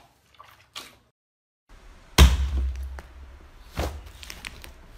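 Hands squishing slime: short wet pops in the first second, then, after a brief silent gap, a loud squelch about two seconds in and another near four seconds, over a low hum.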